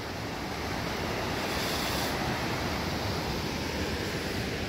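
Steady rushing of the Spokane River's rapids, with wind rumbling on the microphone.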